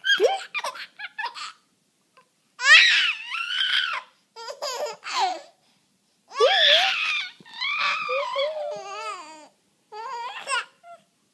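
Baby laughing in repeated high-pitched bursts with short pauses between them; the longest stretch of laughter comes a little past the middle.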